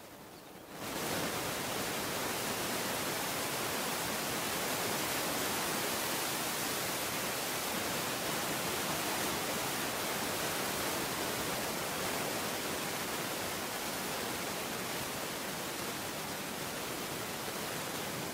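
Airbus Beluga's twin turbofan engines at takeoff power, a loud steady rushing roar that sets in abruptly about a second in and holds.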